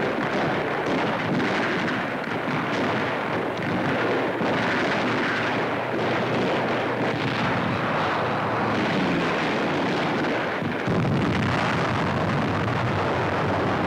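Continuous battle din of anti-aircraft gunfire, explosions and aircraft engines on an old newsreel sound track, with a heavier low rumble coming in about eleven seconds in.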